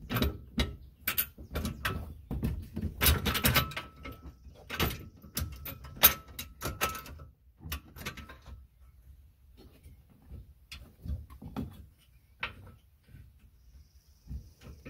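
Steel grill-guard mounting bracket knocking and scraping against the vehicle's frame as it is worked into position by hand: many irregular clanks with a faint metallic ring, busiest in the first seven seconds, then fewer, lighter taps.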